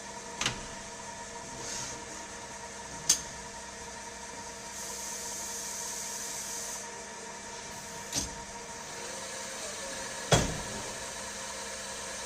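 Tornos Deco 26a Swiss-type CNC lathe running, with a steady machine hum of several held tones. Four sharp clunks sound at irregular intervals, the last the loudest, and a hiss lasts about two seconds in the middle.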